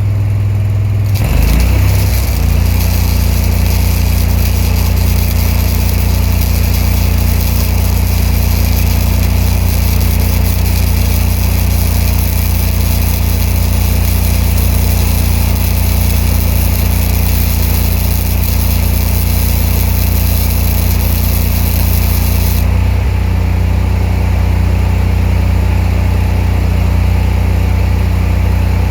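Spool-gun MIG welding arc crackling and hissing as it lays one long bead of about 21 seconds, then cutting off suddenly. Under it an engine-driven welder runs steadily: its engine picks up speed as the arc strikes and settles back when the arc stops.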